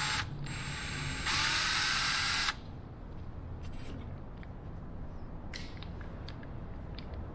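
Electric drill spinning with a high whine in two short bursts. The first stops just after the start and the second runs a little over a second. The bit is run through the holes of clamped brackets to spot centre marks. Small handling clicks follow.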